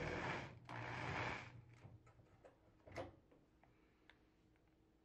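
Cordless drill-driver with a Phillips bit backing out a screw, running in two short spells of about a second each, followed by one faint click about three seconds in.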